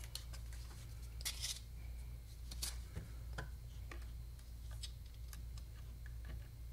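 Scattered light clicks, taps and a brief scrape from hands handling a Pentax 645N camera body and a small clamp while the clamp is fitted over a newly glued dial, over a steady low hum.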